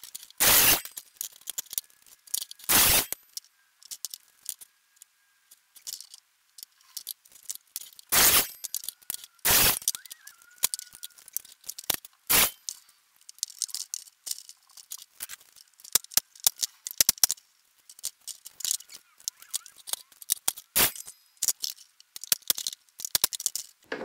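Irregular knocks, clicks and clatter of wooden shelf boards and small tools being handled and set down on a wooden workbench, with a handful of louder sharp knocks among them.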